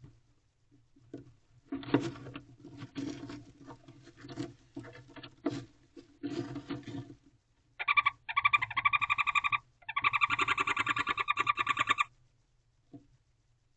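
A barn owl scuffling and scratching on the wooden floor of a nest box. Then it gives two rapid pulsed trilling calls, each about two seconds long.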